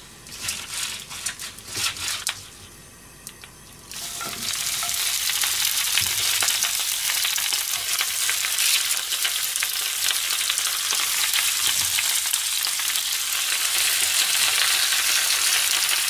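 A few light knocks in the first seconds. Then, about four seconds in, chopped cabbage goes into hot oil in a frying pan and sizzles steadily as it is spread around the pan by hand.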